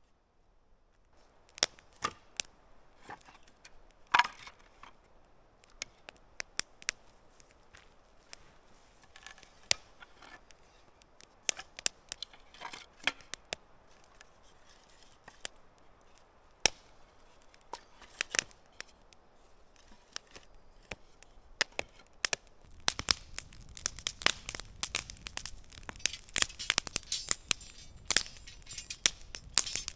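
Small campfire of split kindling crackling, with scattered sharp snaps and pops. About two-thirds of the way through it turns to dense, steady crackling as the fire takes hold.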